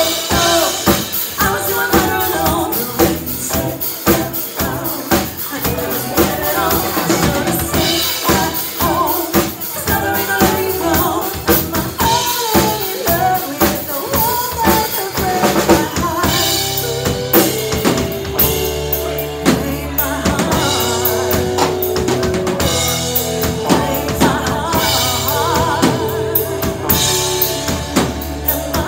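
Live rock/pop band playing: drum kit with snare, rimshots and bass drum, electric guitar and bass guitar, with female singing over it. The bass line comes in fuller about halfway through.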